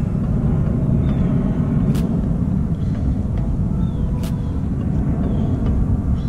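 Wind buffeting the microphone: a steady, uneven low rumble, with two sharp clicks about two and four seconds in.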